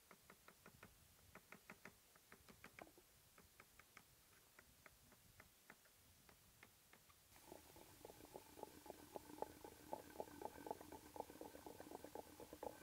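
Kitchen knife slicing a cucumber onto a plastic cutting board: faint quick taps, about five a second, slowing to a few a second. About seven seconds in, this gives way to a wooden pestle pounding ginger-garlic in a stone mortar: faster, louder strokes with a slight ring to each.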